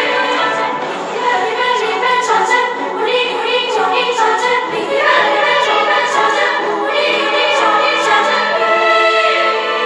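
Recorded music: a boys' choir singing together over orchestral accompaniment.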